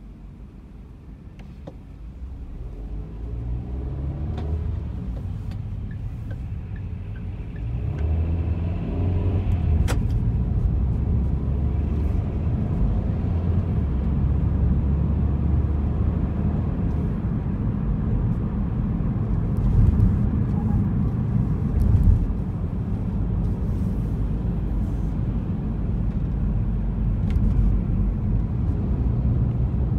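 Car pulling away from a standstill: the engine note rises twice over the first ten seconds as it accelerates, then settles into a steady low rumble of engine and road noise while driving.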